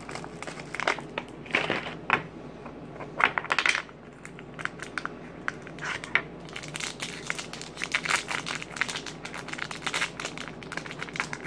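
Thin plastic toy packaging and small plastic toy boxes being handled and opened: irregular crinkling, crackling and quick clicks, louder about one and a half and three and a half seconds in.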